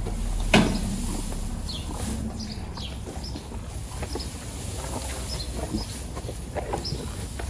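Small birds chirping over and over around a farmyard, with one short loud sound about half a second in and a low steady rumble underneath.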